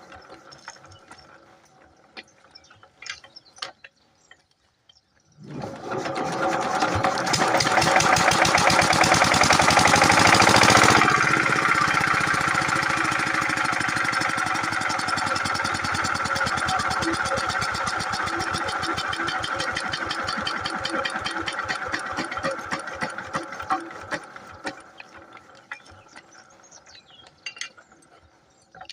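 An 8 hp single-cylinder diesel pump-set engine starts abruptly about five seconds in and runs with a rapid, even chugging. Its sound eases after a peak about midway and then dies away over the last few seconds as the engine stops.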